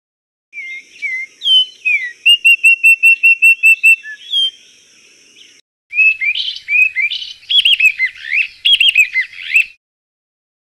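Recorded birdsong played back in two clips. The first has a rapid string of identical chirping notes over a faint steady hiss. After a brief break comes a louder, varied warbling song of quick rising and falling notes.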